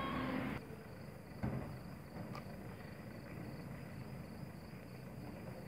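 Quiet outdoor background with a steady faint high-pitched tone, and a single knock about a second and a half in.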